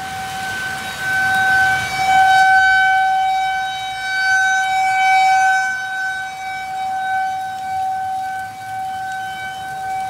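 Outdoor tornado warning siren sounding one steady, unwavering tone, its loudness swelling and fading over several seconds.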